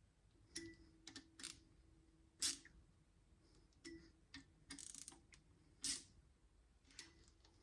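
Scattered light clicks and clinks, about ten spread unevenly, with a short scrape about five seconds in: small tools and metal parts being handled and set down.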